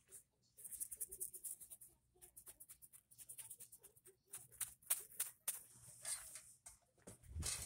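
Scratchy rustling and quick clicking of a phone being handled and moved over clothes and bedding close to the microphone, with a louder rustle near the end.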